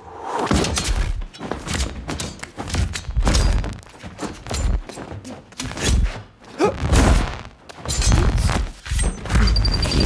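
Film sound effects of a shielded knife fight: synthesized body-shield sounds, glitching and clicking, over a run of heavy thuds from blows landing. Near the end comes a fast, high beeping like an alarm, the signal of a blade cutting through a shield.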